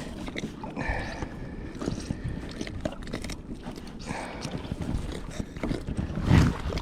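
Irregular knocks and clicks of handling on a plastic kayak, over water and wind noise, with a louder knock near the end.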